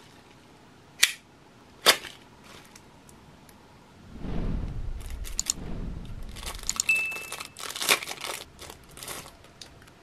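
Packaging being opened by hand: a shipping envelope and the clear plastic bag around a steel card tool. Two sharp snaps in the first two seconds, then crinkling and rustling plastic with low handling bumps from about four seconds in, and scattered crackles near the end.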